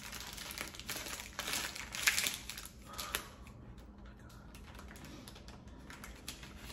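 Paper sandwich wrapper being handled and folded, rustling and crinkling in quick light clicks, busiest in the first three seconds and quieter after.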